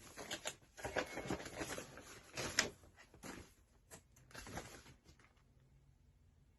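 Faint handling noise of a greeting card and its packaging: irregular rustles and light taps that stop about five seconds in.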